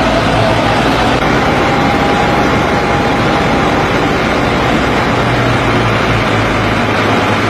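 Fire engine's motor running steadily under load, with a low hum and an even rushing noise over it.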